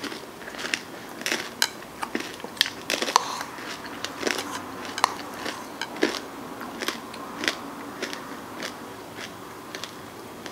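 Chewing a mouthful of ice cream with crunchy cookie toppings: irregular crunches and wet mouth clicks, a few a second.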